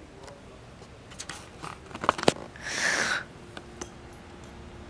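Handling noise from a handheld camera held close: scattered small clicks and rustles, a sharp click a little past two seconds in, then a short hiss about half a second long. A faint steady hum comes in near the end.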